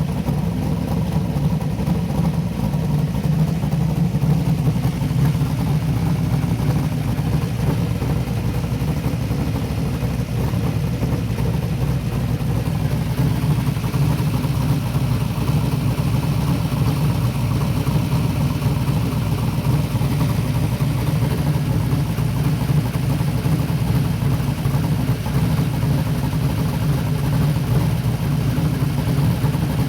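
Car engine idling steadily, run so that trapped air can be burped out of the cooling system.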